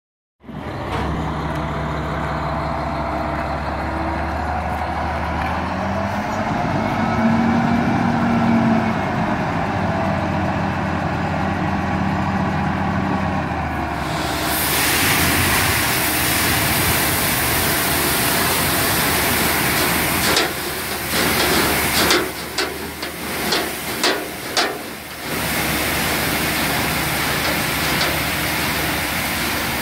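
A dump truck's diesel engine runs at idle and rises in speed a few seconds in as its hydraulic hoist lifts the loaded bed. About halfway through, a loud steady hiss sets in as grain starts pouring out of the tailgate onto the steel grate of a dump pit, with a few brief knocks later on.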